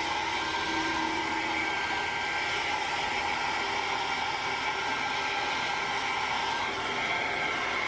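Hair dryer running steadily: a constant rush of air with a faint steady whine, blow-drying a toy poodle's coat.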